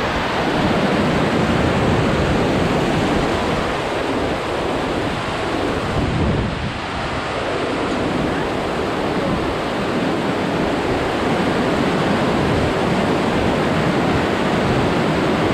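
Glacial meltwater torrent rushing over boulders close by, a loud steady rush of white water.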